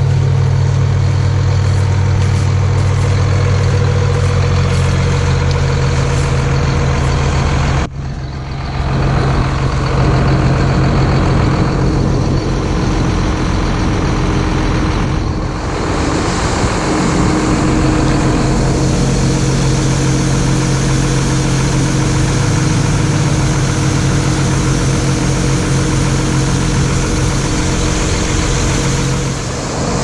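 Diesel engines of a combine harvester and a John Deere 4055 tractor running steadily at work during corn harvest, a deep, even engine hum. The sound cuts abruptly about eight seconds in and turns brighter and noisier about halfway through.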